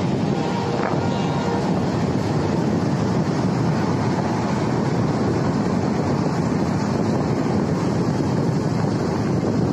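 Steady rush of wind and running noise from a moving vehicle, with wind buffeting the microphone.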